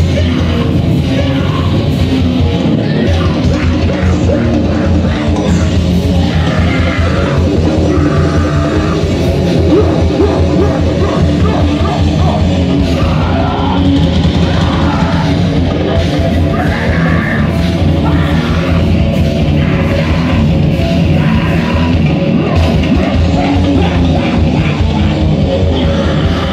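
A grindcore/powerviolence band playing live: loud, dense heavy music, with the vocalist screaming into the microphone in repeated bursts.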